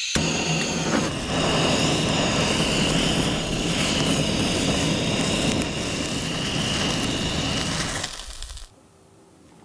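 Butane kitchen blowtorch burning with a steady rushing hiss and a high whistling tone as it sears salmon nigiri. It is lit right at the start and shut off about a second before the end.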